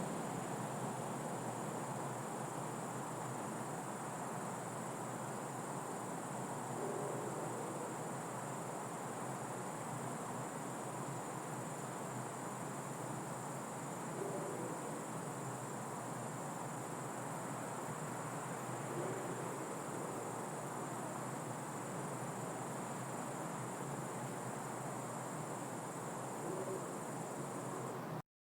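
Crickets chirring at night in a steady, unbroken high trill over a low, even background noise. The sound cuts off abruptly near the end.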